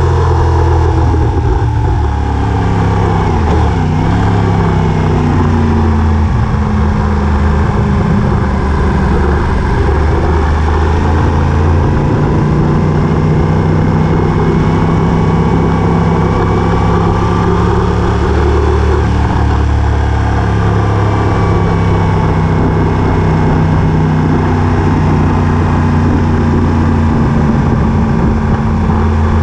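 A vehicle's engine running steadily, a loud low drone whose pitch drifts down and up several times.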